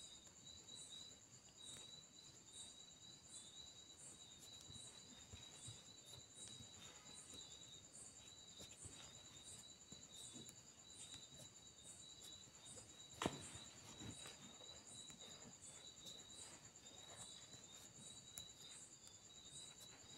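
Near silence with a faint, high-pitched cricket trill and soft chirps pulsing about twice a second. A sharp click comes about 13 seconds in and a softer one a second later.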